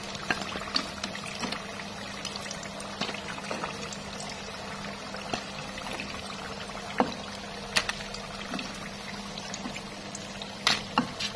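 Batter-coated pumpkin pieces deep-frying in hot oil on their second fry: a steady sizzle full of small crackles and pops, with a few louder sharp clicks about two-thirds of the way in and near the end. A faint low hum runs underneath.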